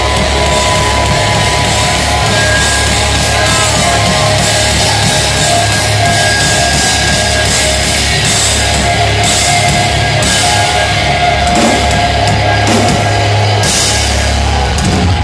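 Post-hardcore band playing live at full volume: heavy guitars, bass and drums with repeated cymbal crashes, heard from within the crowd.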